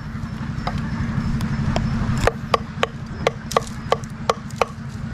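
A knife chopping fish on a cutting board: a quick, uneven series of sharp strikes, about two to three a second, over a steady low rumble.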